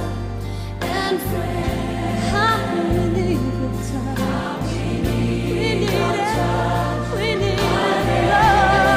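Christian worship music: a choir singing with vibrato over a sustained bass accompaniment.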